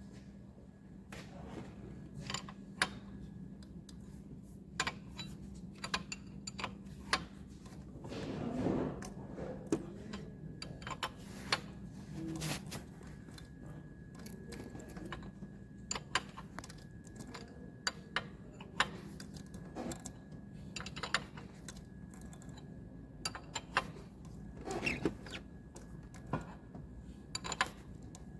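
Light clicks, taps and knocks, irregular and spread throughout, from hand tools and metal engine parts being handled, with a few short scrapes, over a steady low hum.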